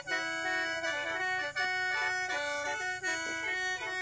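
Khaen, the Lao bamboo free-reed mouth organ, playing a melody in several notes at once over a held drone. The sound dips briefly about every second and a half.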